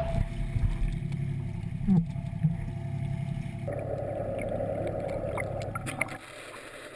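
Boat's engine running steadily with water noise around the hull, a few knocks about two seconds in; the sound changes about halfway through and drops away near the end.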